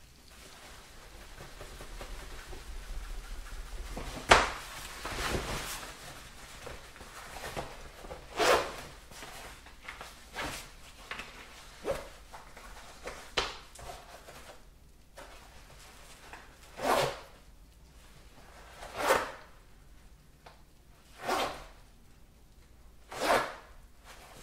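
Urination in a bathroom toilet: a rushing stream swells over the first few seconds, then there is a sharp click about four seconds in. A string of short swishing bursts follows, spaced about two seconds apart.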